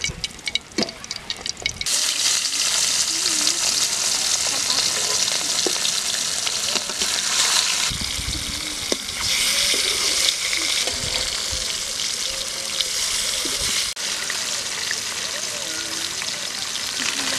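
Fish steaks sizzling steadily in hot oil in a metal kadai. A few sharp clicks come first, then about two seconds in the sizzle comes up loud and stays.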